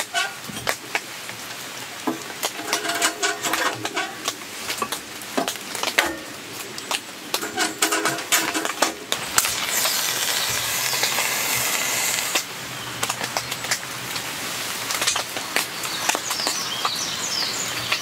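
Bark and kindling being laid into a small wood-burning stove's firebox, with scattered clicks and knocks of wood on the stove's metal. About ten seconds in, a flame is lit with a hiss that lasts about three seconds and cuts off abruptly.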